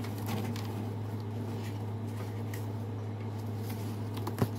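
Faint handling noises as a plastic toy robot is taken out of its packing: light clicks and rustles over a steady low hum, with one sharp click near the end.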